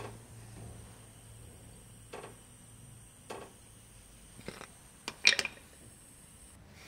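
Metal tools and parts being handled: a few separate light clinks and knocks, then a louder short clatter about five seconds in. A low steady hum fades out in the first second or two.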